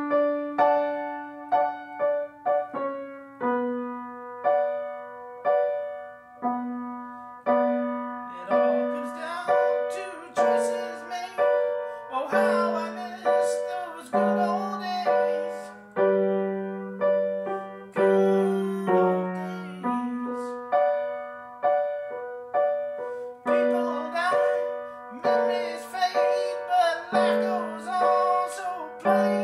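Piano playing an instrumental passage: steady repeated chords over a changing bass note, each struck chord ringing and fading about once a second.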